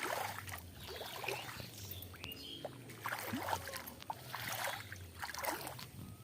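Shallow rainwater pooled on a flat roof being splashed and sloshed, a run of irregular splashes about a second apart.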